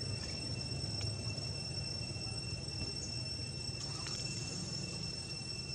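Insects droning steadily at one high pitch, over a low background rumble, with a few faint clicks.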